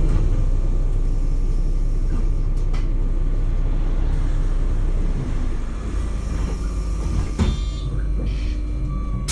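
MAN Lion's City hybrid city bus running with a steady low rumble and a faint constant tone, with a few brief clicks. Right at the end a rising whine begins as the bus starts to accelerate.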